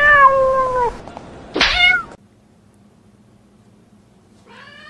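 A cat meowing twice: a long meow that falls slightly in pitch, then a shorter rising-and-falling meow about a second and a half in. A quiet low hum follows.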